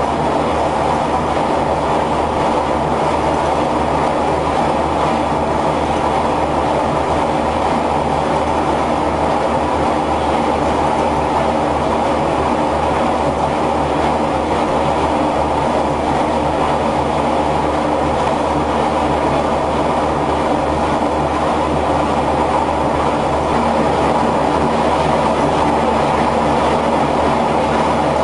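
Steam-powered textile mill machinery running steadily and loudly, a dense, even run of rapid mechanical knocking with no pause.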